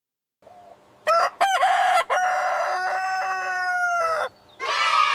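Rooster crowing: a cock-a-doodle-doo of short opening notes and a long held final note that drops at the end. Another harsh call starts near the end.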